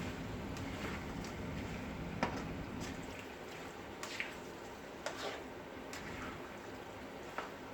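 Pork for menudo simmering in a pot: a soft bubbling hiss with a few sharp pops or clicks scattered through it. A low hum underneath drops away about three seconds in.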